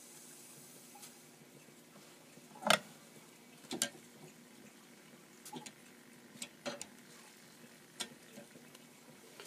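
Scattered sharp metallic clicks and taps as a hand works the parts of a Wilesco D5 toy steam engine, the loudest a little under three seconds in and a quick double click about a second later, over a faint hiss while the boiler heats up.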